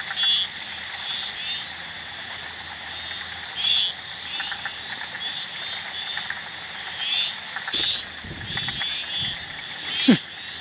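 Chorus of frogs calling around floodwater: many short, high-pitched calls repeating and overlapping over a steady background of calls. A couple of sudden knocks come near the end.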